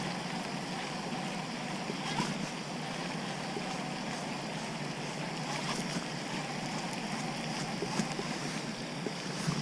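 Steady wind and water noise on the microphone, with a few faint light clicks.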